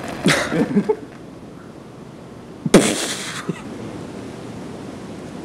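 A firework going off with one sharp bang about halfway through, followed by a brief hiss. A shorter burst of noise comes right at the start.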